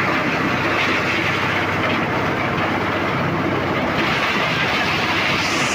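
Motorized corn sheller running steadily, a loud, even mechanical noise.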